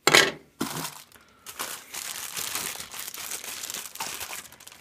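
A sharp, loud rustle right at the start, then packaging crinkling steadily as it is handled.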